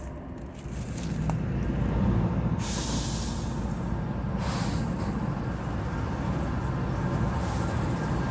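Train rolling across a steel truss railroad bridge: a steady low rumble that grows louder about a second in, with a stretch of hiss about three to five seconds in.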